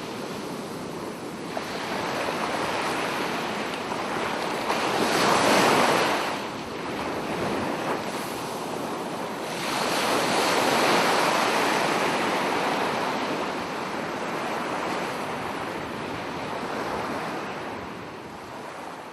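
Ocean surf breaking and washing up a beach, the waves swelling and easing, with louder breakers about five seconds in and again about ten seconds in.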